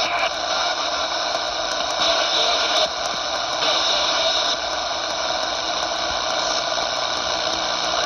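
Luiton LT-298 CB radio's speaker hissing with steady static on an empty channel, no transmission coming through. The hiss grows brighter twice, briefly, around two and four seconds in.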